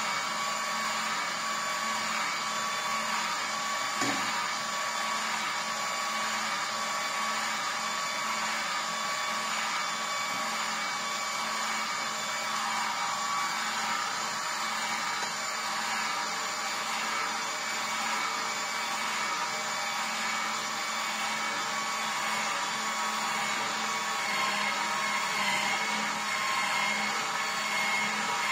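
Vertical slow juicer's motor running steadily as its auger presses pineapple, with one brief knock about four seconds in.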